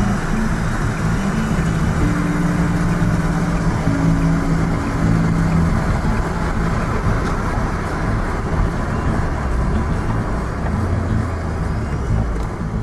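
Volvo 480 Turbo's turbocharged four-cylinder engine and tyre noise heard from inside the cabin while driving. A steady engine drone holds from about two to six seconds in, and a deeper rumble follows later.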